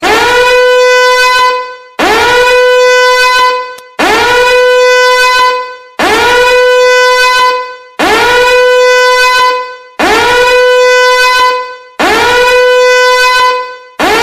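A loud, brassy horn sound effect blasting over and over: the same long blast repeats every two seconds, each one swooping up in pitch at the start and then holding a steady note before fading off.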